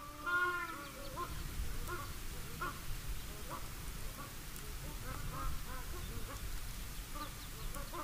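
Japanese crested ibises calling: many short, repeated calls from several birds overlapping at different pitches, the loudest just after the start.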